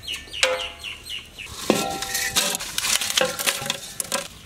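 Whole biryani spices (bay leaves, cinnamon sticks, cloves, cardamom pods, star anise) poured from a steel plate into a large empty aluminium pot, clattering and ticking on the metal bottom. A few short chicken clucks sound among the rattle.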